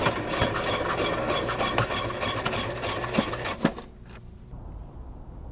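A steady mechanical whirring, a small machine running, that stops about four seconds in.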